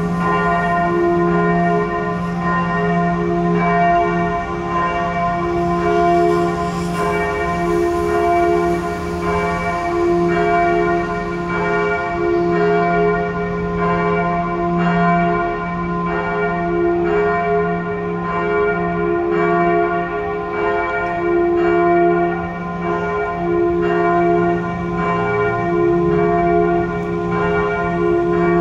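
A single swinging church bell tuned to f′ ringing alone, struck at an even, steady pace, with its low hum sounding on beneath the strokes.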